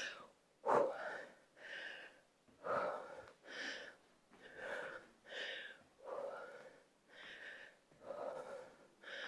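A woman breathing hard from exercise, faint, about one breath a second.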